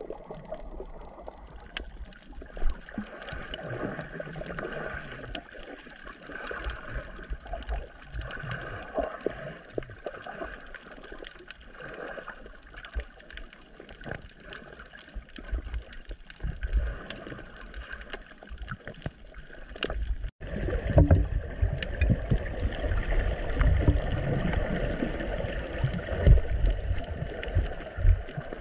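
Muffled underwater sound picked up through a camera's waterproof housing: a wash of water noise with scattered crackles and clicks. After a break about twenty seconds in it grows louder, with a heavier low rumble of moving water.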